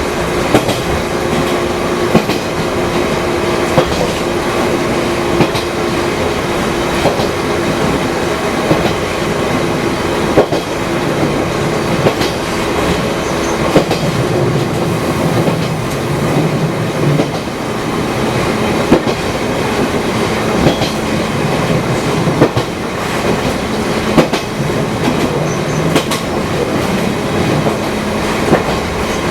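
An over-50-year-old Fukui Railway 200 series electric railcar running along the line: continuous running noise with frequent clicks of wheels over rail joints. A steady hum fades out about a third of the way in, and lower humming comes and goes later.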